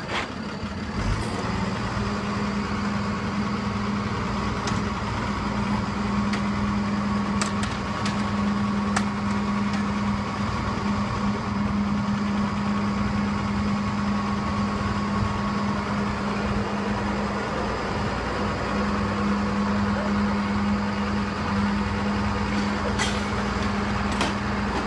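Skip loader lorry's diesel engine running with a steady hum while its hydraulic arms lift and tip a skip, with a few sharp clicks.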